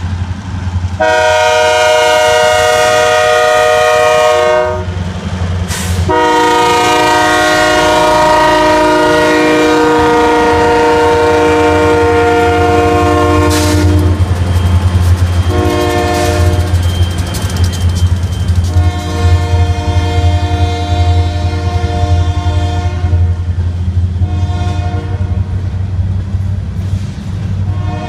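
Union Pacific GP38-2 diesel locomotive's air horn sounding the grade-crossing signal: two long blasts, a short one and a long one, then a brief blast and another starting near the end. Under it, the locomotives' diesel engines drone and the wheels clatter on the rails as the train passes close by.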